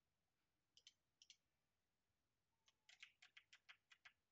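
Faint clicks of a computer mouse and keyboard: two quick double clicks about a second in, then a run of about ten clicks in quick succession near the end.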